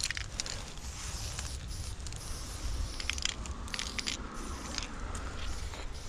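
Aerosol spray-paint can hissing in short bursts as lines are sprayed onto a brick wall, with scattered crunchy clicks under a steady low rumble.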